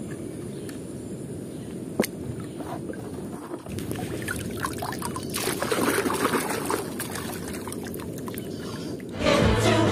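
A hand sloshing and splashing in a basin of water, starting about a third of the way in, after a single sharp click. Near the end, film soundtrack music cuts in suddenly and loudly.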